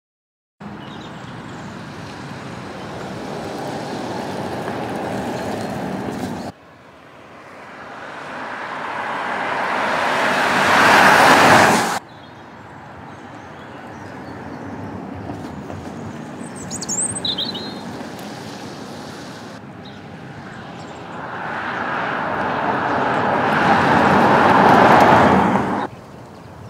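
Skoda Enyaq iV electric SUV driving past on a road: tyre and road noise with no engine note, swelling as the car approaches and cutting off abruptly at its loudest, twice, between steadier stretches of road noise. A bird chirps briefly about halfway through.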